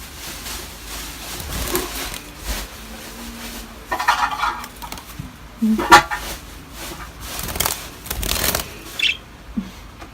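Pet birds in a cage giving a few harsh squawks and a short high chirp, the loudest squawk about six seconds in, among scattered clicks and rattles.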